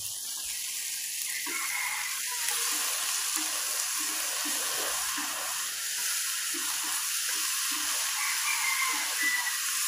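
Small freshwater shrimp (tép rong) sizzling steadily in a hot metal wok as they are dry-roasted with salt. From about three seconds in, chopsticks stir them in an even rhythm of a few strokes a second.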